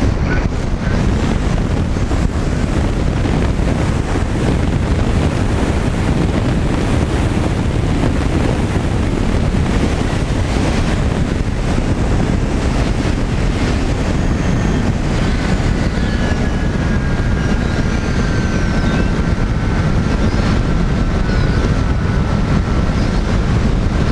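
Steady loud rush of wind over a microphone, with no break. About two-thirds of the way in, a thin, steady, slightly wavering high whine joins it.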